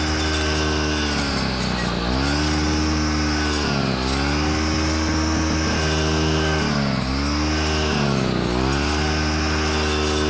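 Gas brush cutter fitted with a saw blade running at high revs, its engine pitch sagging and recovering about four times as the blade bites into thick brush and weeds.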